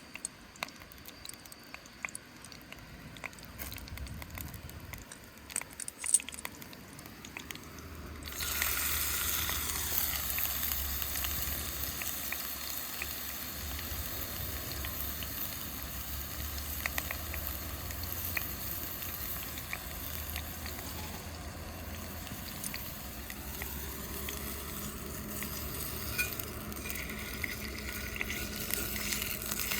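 Food frying in hot oil in a pan. The sizzle starts suddenly about eight seconds in and then holds steady, after a quieter start with a few light clicks and knocks.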